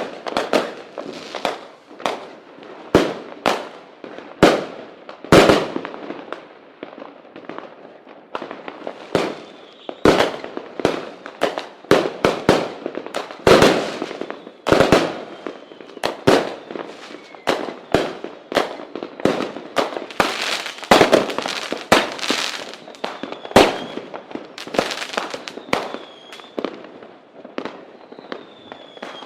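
Firework rockets (cohetes) going off in a dense, irregular string of sharp bangs, often several a second, with faint short whistles heard now and then.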